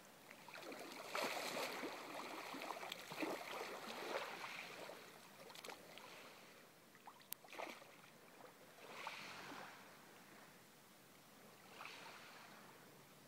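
Shallow sea water sloshing and splashing around a person wading and lowering himself into it. The splashing comes in uneven bursts, busiest in the first few seconds, then in a few softer swells.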